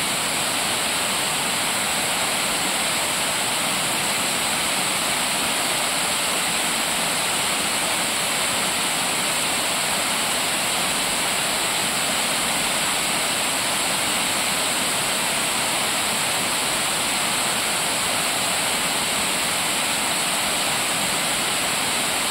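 Steady rush of water pouring over a river cascade.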